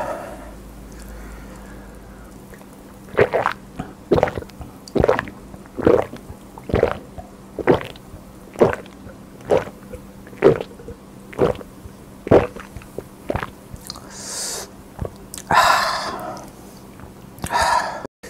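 Close-miked chewing: a slow, steady run of wet mouth clicks about once a second, followed near the end by a few breathy rushing sounds.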